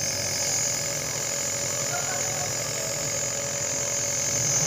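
Compressor nebulizer running, a steady motor hum with an even hiss.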